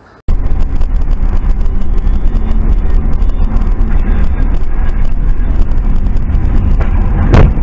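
Car driving, heard from a dashcam inside the cabin: a loud, steady road and engine rumble that cuts in abruptly just after the start, with one sharp knock near the end.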